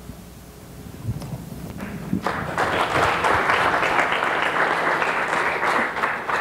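Audience applauding, starting about two seconds in and holding steady as a dense patter of many hands clapping.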